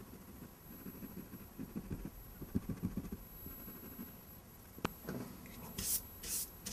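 Rubber eraser rubbing back and forth on drawing paper in quick strokes, then a sharp tap, then two quick swishes of a drafting brush sweeping eraser crumbs off the paper near the end.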